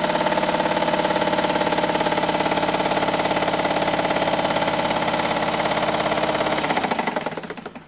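Early-1960s Dress sewing machine, driven by an add-on electric motor, running at a fast, even rhythm. It slows and stops near the end. The once-seized mechanism now runs much smoother after repair.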